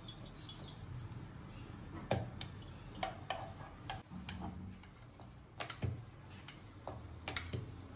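Samosa dough being flattened by hand and rolled out with a wooden rolling pin on a round wooden board: faint, with scattered light wooden knocks and clicks as the pin and board shift.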